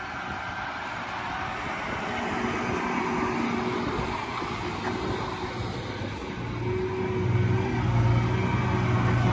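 A John Deere 7R 310 tractor's six-cylinder diesel engine idling steadily, its low hum growing louder about two-thirds of the way through.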